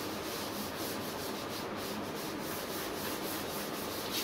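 Blackboard being wiped clean with a hand-held duster, a steady scrubbing in quick back-and-forth strokes, about four a second.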